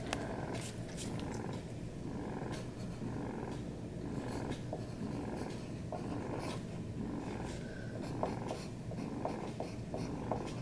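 Electric breast pump running through its suction cycle: a steady hum with light clicks recurring throughout.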